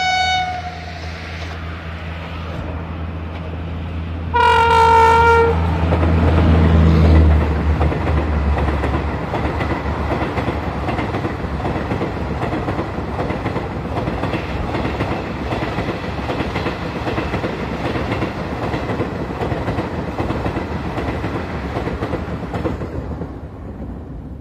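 WAP-5 electric locomotive's dual-tone horn: a short higher note ending just under a second in, then a lower blast lasting about a second, four seconds in, over the low hum of the approaching engine. The express then rushes past at speed with wheels clattering over the rails for about fifteen seconds, fading near the end.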